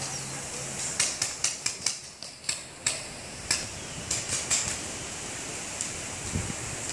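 Paintball markers firing, a ragged string of sharp pops about a second in that thins out after about four and a half seconds, with one more near the end.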